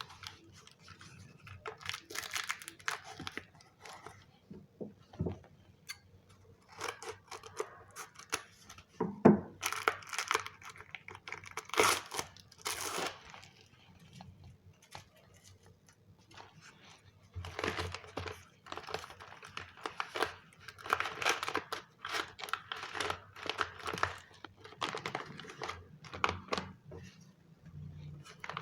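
Pieces of corrugated paper being handled, crinkling and tearing in irregular bursts, with a quieter lull about halfway through.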